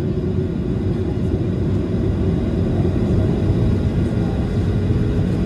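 Boeing 737-800's CFM56-7B turbofan engines running, heard from inside the cabin: a steady rumble with a steady hum over it, growing slightly louder.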